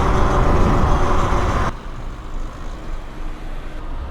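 Talaria Sting R electric dirt bike on the move: wind rush on the microphone with a steady whine, cutting off suddenly about a second and a half in, leaving a much quieter low noise as the bike slows.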